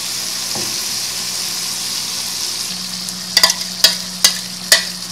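Chicken pieces sizzling steadily in a hot pan as whisked yoghurt is poured over them. From about three seconds in come a series of sharp knocks on the pan, roughly two a second.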